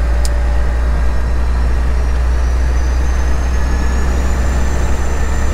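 Freightliner Classic semi-truck's diesel engine and road noise heard from inside the cab while cruising: a steady deep drone with a thin high whine that slowly rises in pitch.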